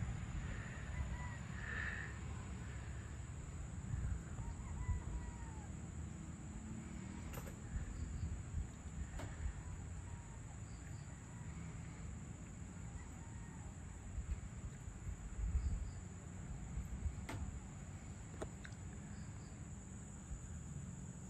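Dusk ambience over tropical forest: insects trilling steadily at a high pitch, with scattered short bird calls. A low rumble runs underneath, and a few faint ticks come through.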